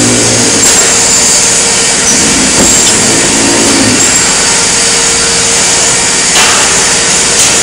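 Loud, steady running noise of metal-shop machinery, a dense roar with a faint steady hum in it.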